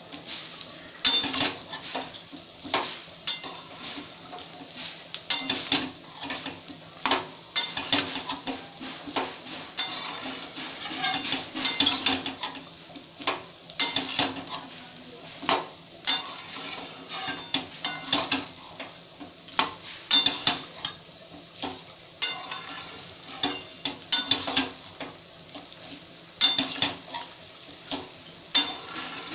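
Metal spatula scraping and knocking against a metal wok as fried rice is stirred continuously, in irregular strokes about one or two a second. A faint sizzle of the rice frying runs underneath.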